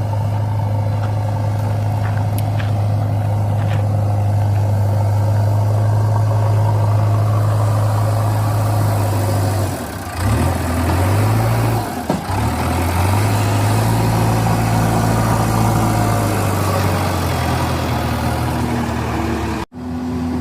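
Heavy earthmoving machine's diesel engine running, a loud steady low drone. About ten seconds in, the engine note dips and climbs back twice as the revs change, then settles again. There is a sudden break near the end.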